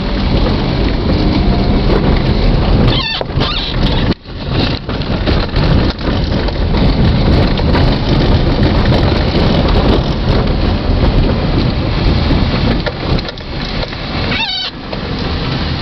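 Car driving over a rough dirt and gravel track, heard from inside the cabin: tyres crunching on stones, with the body and suspension rattling and knocking. Two brief squeaks cut through, about three seconds in and near the end.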